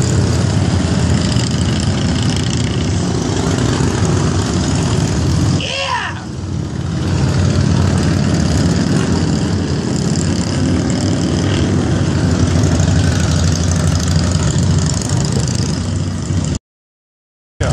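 A procession of cruiser motorcycles riding past one after another, their engines running loud and low, with a brief lull about six seconds in. The sound cuts out completely for about a second near the end.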